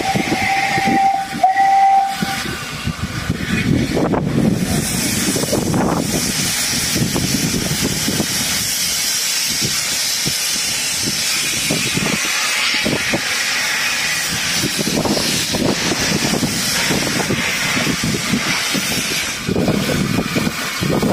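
A steam locomotive's whistle sounds one steady note for about two seconds at the start. Then comes a loud, steady hiss of steam with irregular low chuffs as an industrial saddle-tank engine starts its train away with its cylinder drain cocks open.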